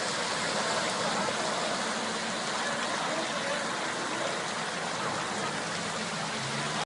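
Steady rush of heavy rain and running water in a flooded street.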